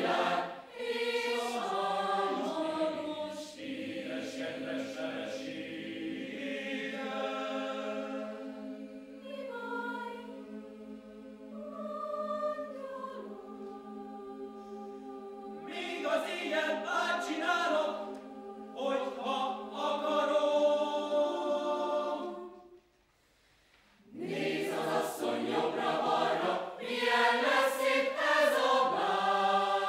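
Mixed choir singing a cappella in long held chords, breaking off into a short silence about three-quarters of the way through, then coming back louder before cutting off.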